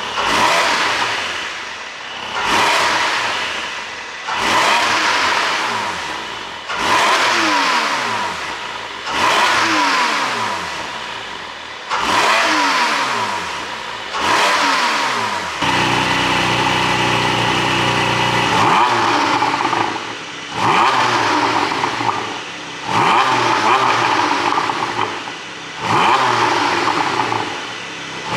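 Porsche 718 Boxster 4.0 GTS's naturally aspirated 4.0-litre flat-six, ECU-tuned for exhaust pops, revved repeatedly in short blips, the pitch falling away after each as the revs drop. About halfway through it holds a steady rev for about three seconds, then goes back to quicker blips.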